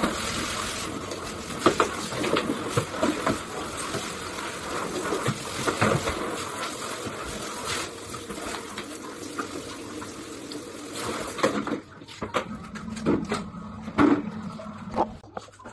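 Water spraying from a handheld shower head into a bathtub, with scattered knocks of handling and scrubbing. The water stops about three-quarters of the way through, leaving a few clunks and taps.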